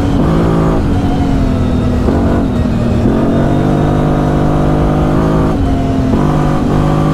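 CFMOTO Overland ATV engine running under way, its revs rising and dropping several times and held steady for a couple of seconds in the middle.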